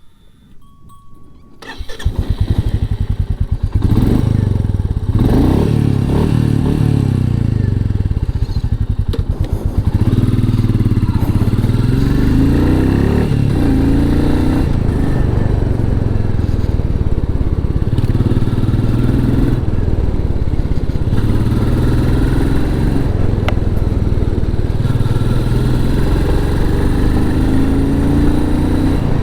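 Royal Enfield Meteor 350's 349 cc single-cylinder engine through its stock exhaust, starting about two seconds in and catching at once. It then runs loud and steady, with repeated rises and falls in pitch as it is revved or ridden.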